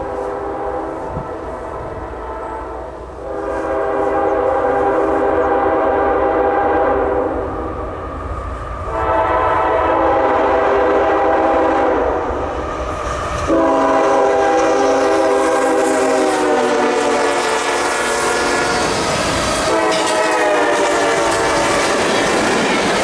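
Diesel freight locomotive's multi-chime air horn sounding several long blasts for the grade crossing as the train approaches, the last blast the longest. Near the end the pitch drops as the locomotive reaches the camera, and the horn gives way to the rumble and wheel clatter of the train passing close by.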